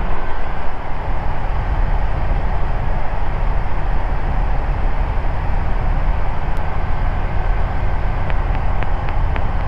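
Steady drone of an Ikarus C42B microlight in cruise flight: its engine, propeller and airflow heard from the cockpit. A few faint ticks come near the end.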